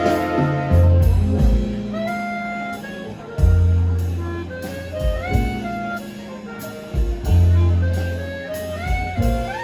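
Jazz orchestra playing a slow tune: a melody line moving in steps over deep bass notes that come in about every three and a half seconds.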